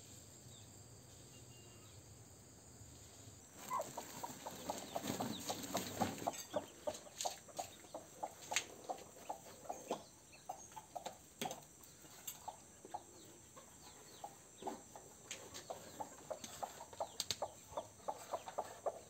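Broody hen clucking on her nest of newly hatched ducklings: short, low, repeated clucks, a few a second, starting about three and a half seconds in, with some sharp clicks among them.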